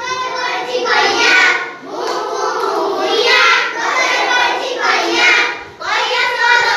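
A group of young children singing an action rhyme together in chorus, in short repeated phrases.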